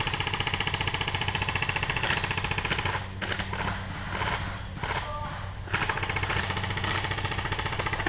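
An airsoft gun firing on full auto: two long, rapid rattling bursts, one at the start and one from a little past the middle, with a short lull between them.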